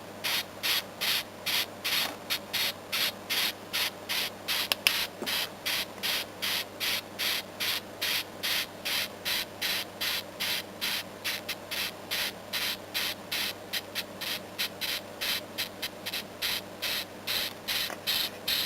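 Large beetle stridulating: a rasping pulse repeating steadily about three times a second, made as it rubs its body against the inside of its shell. A steady low hum runs underneath.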